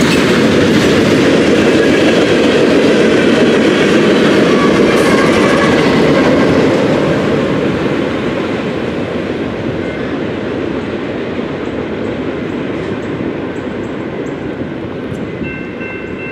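Freight cars loaded with steel coils rolling past at track level, wheels rumbling and clicking over the rail joints. After about seven seconds the rear of the train has passed and the rumble fades as it moves away. Near the end a steady, distant horn chord sounds.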